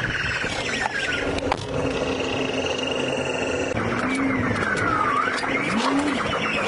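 Police siren wailing, its pitch sweeping down and back up, with a steady high pulsing tone for a couple of seconds in the middle. Car engine and road noise run underneath as the car drives.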